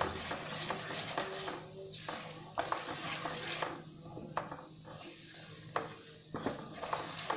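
Ground fenugreek and fennel with nigella seeds frying in hot mustard oil in a non-stick wok, a steady sizzle, while a silicone spatula stirs and scrapes the pan, knocking against it several times in the second half.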